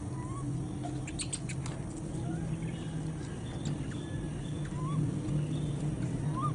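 Outdoor background with a steady low rumble and a few faint, short rising squeaks, plus a quick run of clicks about a second in.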